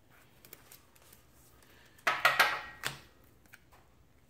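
Trading cards being handled and sorted: a short rustling slide of cards about two seconds in, with a few light clicks around it.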